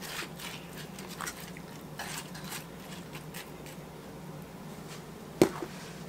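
Hands tossing quartered potato wedges and onion pieces in a ceramic baking dish: faint soft rustles and light knocks of the potatoes against each other and the dish. A single sharp click comes about five and a half seconds in.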